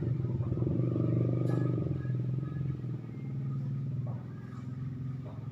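A motor or engine running with a steady low hum.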